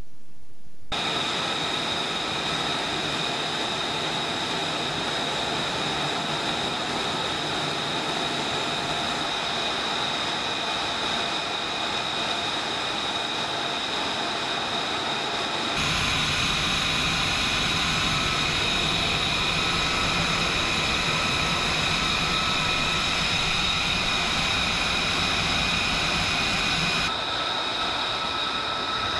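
F-35B's Pratt & Whitney F135 turbofan running with the jet parked for a hot reload: a steady jet whine of several high tones over a continuous rush. It comes in abruptly about a second in, gets louder and brighter about halfway through, and shifts again near the end.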